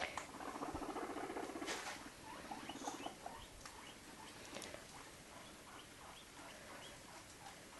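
Guinea pigs making a low pulsing purr for about the first three seconds, then only soft scattered ticks and taps.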